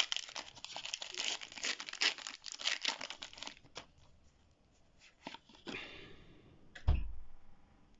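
Foil booster pack wrapper being torn open and crinkled for about three and a half seconds, then a few light clicks of the cards being handled and a single thump near the end.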